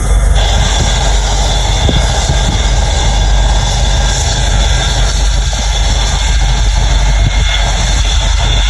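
Boeing 727-200's three Pratt & Whitney JT8D turbofan engines running loud and steady, with a high, even whine over a deep rumble.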